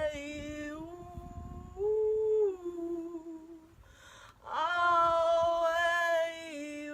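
A woman's voice singing long, wordless sustained tones as a sound meditation. One note slides up a step about two seconds in and back down. After a short breath pause she holds another long note that steps lower near the end.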